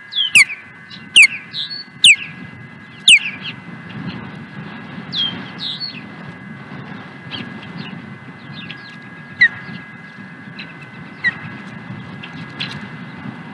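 Osprey calling from the nest: loud, sharp, downward-sliding whistled chirps about once a second for the first three seconds or so, then softer, scattered chirps.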